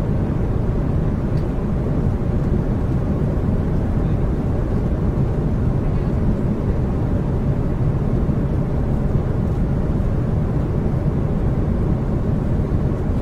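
Steady drone of aircraft engines and rushing air heard from inside the cockpit of a large plane in flight, even and unchanging, mostly low in pitch.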